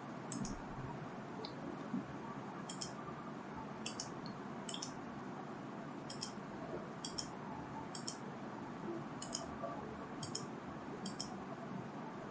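Computer mouse clicking, about one click a second, many heard as a quick double tick of press and release, over a faint steady hiss.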